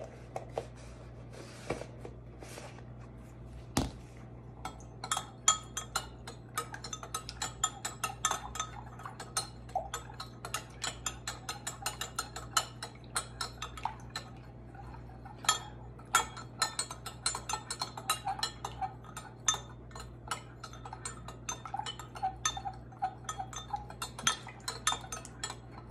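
Metal spoon stirring cornstarch into liquid in a glass measuring cup, clinking rapidly against the glass, several light rings a second. In the first few seconds, before the stirring starts, there are a few scrapes and one sharp knock.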